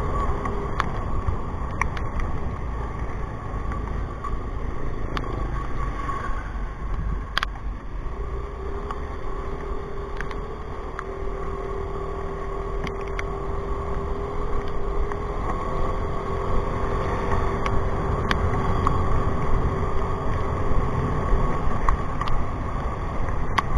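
A motorcycle runs along a wet street in rain, with a steady engine note that drifts slightly higher in pitch midway, under a constant low rush of wind and road noise. Scattered sharp ticks come throughout.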